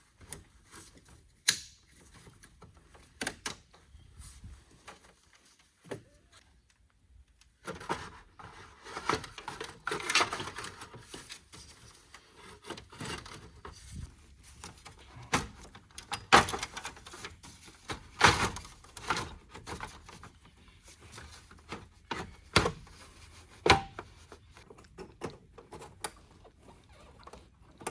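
Car parts being handled and fitted by hand during reassembly: irregular sharp clicks and knocks with stretches of rubbing and scraping, quiet for the first few seconds and busier from about eight seconds in.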